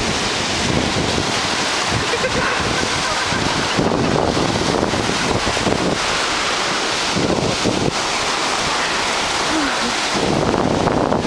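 Ocean surf breaking and washing up the shore, steady and loud, with wind buffeting the microphone.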